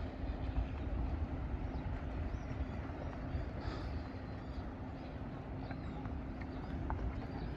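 Outdoor ambience: a steady low rumble with a few faint, high bird chirps over it.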